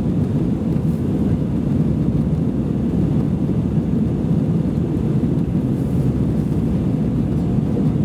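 Steady low rumble of cabin noise inside an Airbus A320-214 in flight: its CFM56 jet engines and airflow heard from a rear seat.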